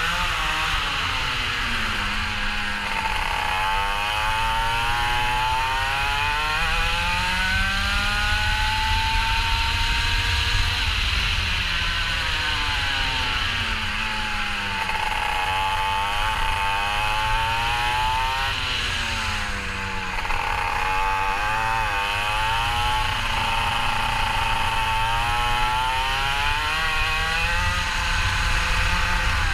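Racing kart engine revving hard and falling back again and again: long rises in pitch on the straights, sharp drops for the corners, over a steady low rumble.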